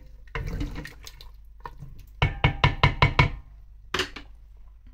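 Wooden spoon knocked against the rim of a steel pressure-cooker pot after a brief scrape: a quick run of about seven sharp knocks with a slight metallic ring, then one more knock near the end.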